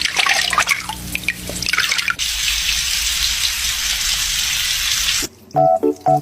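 Running water for a parrot's shower: splashing and dripping at first, then a steady spray from the tap that cuts off suddenly about five seconds in. Short musical notes follow.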